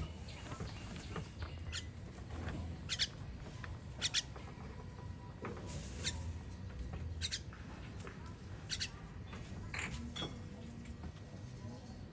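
Baby bird giving short, high-pitched squeaking chirps, about a dozen at irregular intervals: begging calls while being fed.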